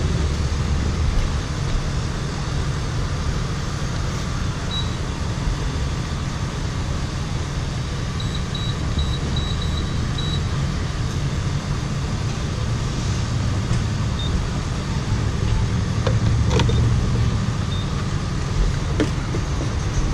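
Fuel pump keypad giving short high beeps as the ZIP code is keyed in, with a quick run of about seven beeps around eight to ten seconds in and single beeps before and after. A steady low rumble runs underneath, with a couple of sharp clunks late on.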